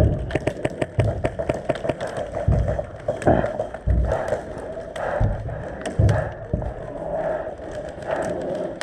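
Irregular low thuds, like footsteps on hard ground, mixed with many quick sharp clicks and knocks from an airsoft player on the move.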